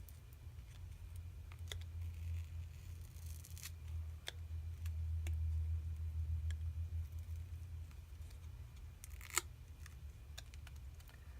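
Plastic opening picks clicking and scraping against a Samsung Galaxy S9's glass back as they cut through strands of adhesive, with a sharper click about nine seconds in, over a low hum.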